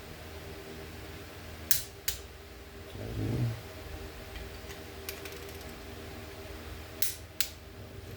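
A torque wrench clicking as a cylinder-head stud reaches its 30 ft-lb setting, twice, each a quick double click. A short low thud comes between them, over a steady low hum.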